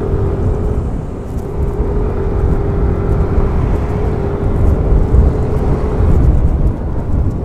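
Yamaha NMAX scooter riding along, its engine giving a steady hum that stops about six seconds in, under heavy wind rumble on the microphone.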